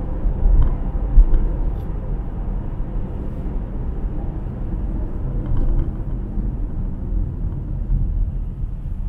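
Steady low rumble of a car driving along a city street: engine and tyre noise.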